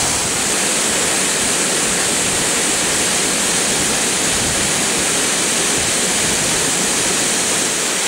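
Weißbach waterfall, an alpine mountain waterfall, pouring over rock ledges close by: a steady, even rushing of falling water.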